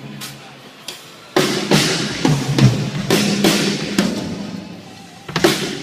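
Drum kit being played in a sound check: a few single hits, then a quick run of drum strokes from about a second and a half in, and two more hits near the end, each ringing out in a big arena.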